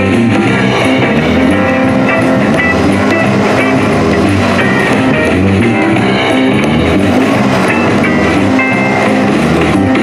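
Guitar-driven music playing loudly and steadily through an ECOXGEAR SoundExtreme SE26 Bluetooth speaker bar.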